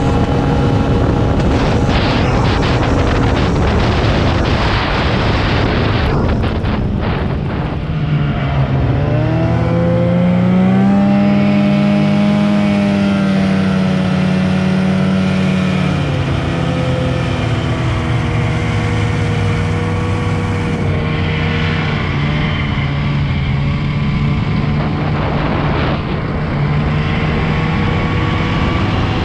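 Snowmobile engine running under the rider at speed. It is rough and noisy for the first several seconds, then its pitch climbs about eight seconds in and holds high for several seconds before dropping back a little.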